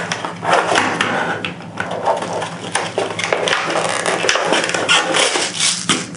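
Hands opening and handling the pistol's retail packaging: a continuous run of rubbing, scraping and rustling with many short clicks and knocks.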